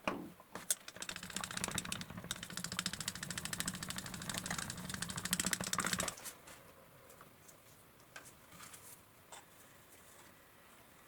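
A small electric workshop tool runs with a fast, buzzy rattle over a steady hum for about five seconds, then stops suddenly. A few faint clicks follow.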